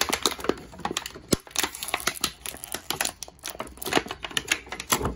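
Thin clear plastic bag crinkling and crackling as hands handle it and work it open, an irregular run of sharp crackles.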